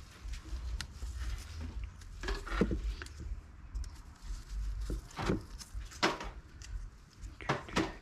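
Scratching and rustling of thin copper magnet wire being pulled and unwound by hand off a small microwave turntable motor coil, with a few louder scrapes and rattles, the loudest about six seconds in, over a low steady rumble.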